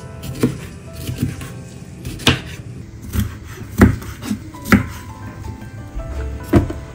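A santoku knife chopping red bell pepper on a bamboo cutting board: about six sharp, irregularly spaced knocks of the blade hitting the board, over background music.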